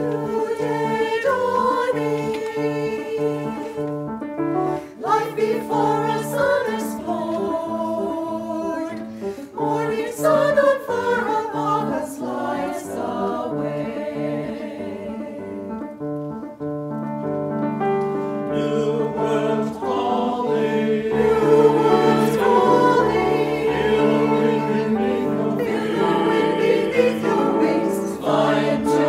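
Mixed choir of men's and women's voices singing an anthem with piano accompaniment, a low piano note repeating steadily beneath the voices. The singing swells louder in the second half.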